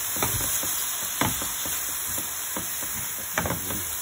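Swiss chard stems sizzling in a frying pan while a wooden spatula stirs them, scraping and knocking against the pan. The two loudest knocks come about a second in and near the end.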